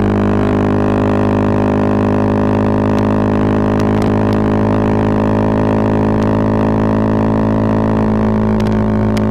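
Bajaj Pulsar 220F single-cylinder engine on a Race Concepts full-system aftermarket exhaust, running at steady cruising revs as a continuous drone. Its pitch eases slightly lower near the end.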